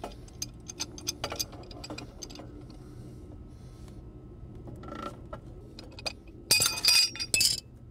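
Pipe wrench working on brass gas-pipe fittings as the pressure-test gauge assembly is broken off: a run of sharp metallic clicks and clinks, then a louder cluster of metal clinking and rattling near the end.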